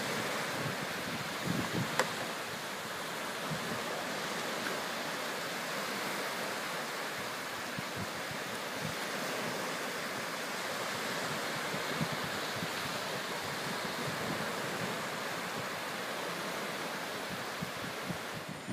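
Small waves breaking and washing onto a sandy beach, mixed with wind rushing over the microphone, at a steady level; a single sharp click about two seconds in.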